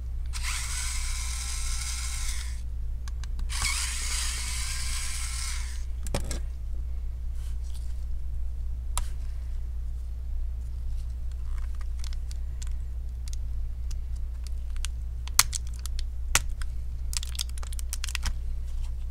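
Pen-style electric screwdriver whirring in two bursts of about two seconds each as it backs out two small screws holding the laptop battery, followed by scattered light clicks and taps.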